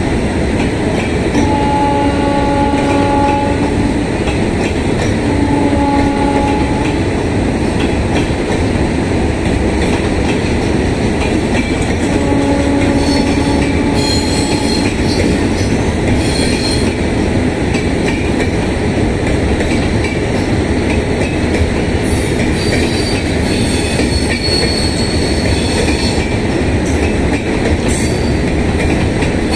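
A long passenger train of LHB coaches rolling past with a steady rumble and clickety-clack of wheels over the rail joints. A train horn sounds three times: two short blasts in the first seven seconds and a longer one around the middle. High-pitched wheel squeal comes and goes in the second half.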